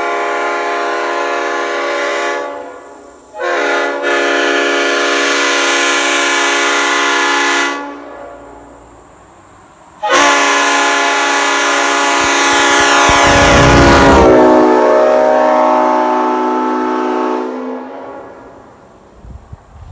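Leslie RS5T five-chime air horn, a locomotive horn with bells 25, 31, 37, 44 and 55, sounding its sustained chord in three blasts. The first ends about two seconds in, the second lasts about four seconds, and the third, the longest and loudest, runs about seven seconds before dying away near the end.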